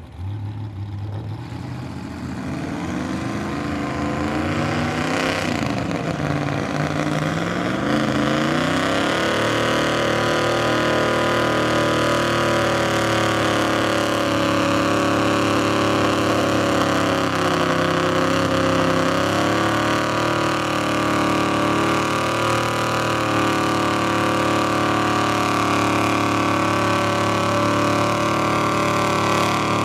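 Off-road truck's engine revving hard under heavy load as it ploughs through deep mud. The revs climb and dip over the first several seconds, then hold high and steady.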